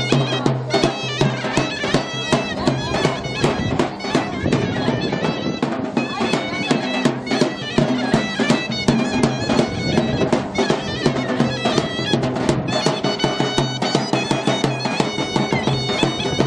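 Live Turkish wedding music on davul and zurna: a shrill double-reed melody over a held drone, with the big drum beating steadily underneath.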